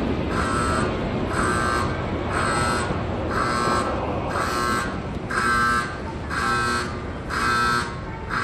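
Railway station emergency alarm buzzing in short, even pulses about once a second, over a steady low rumble. It signals an emergency stop that turned out to be a false alarm.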